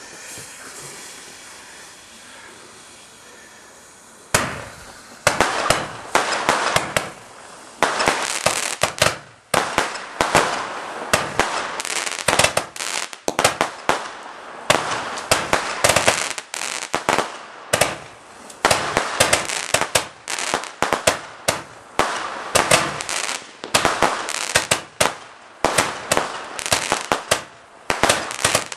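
Fireworks: a faint hiss for the first few seconds, then about four seconds in a rapid, continuing barrage of bangs and crackles, going off in quick clusters.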